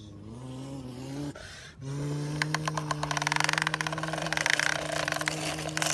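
Plastic toy dump truck moved through sand: a dense gritty crackling of sand and plastic starts about two seconds in, over a steady low hum.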